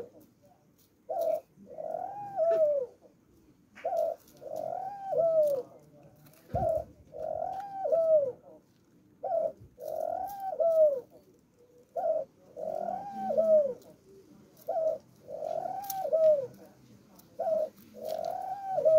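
Collared dove cooing over and over, about every two and a half to three seconds: each call is a short note followed by a longer note that rises and falls. A single dull bump comes about six and a half seconds in.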